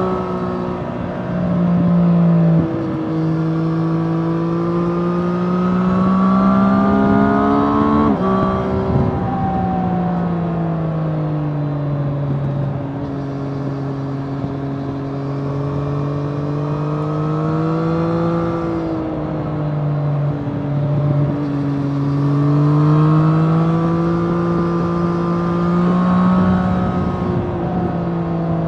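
2024 Triumph Street Triple RS's 765 cc three-cylinder engine on its stock exhaust, running under way with wind rush. The engine note rises and falls through the bends, with a sudden drop in pitch about eight seconds in.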